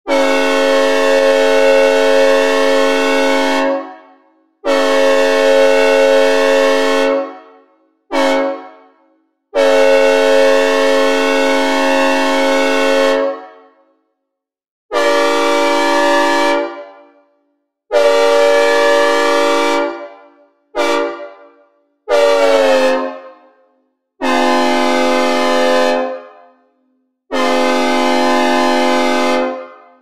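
Synthesized recreation of a Nathan M5 five-chime train air horn sounding a steady chord in about ten blasts. Long blasts of three to four seconds are mixed with a few short toots, and each ends in a brief fading tail.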